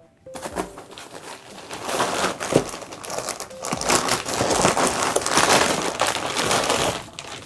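Plastic zip-top bag and bubble wrap crinkling and rustling as hands open the bag and work a wrapped beer can out of it, getting louder about two seconds in and stopping just before the end.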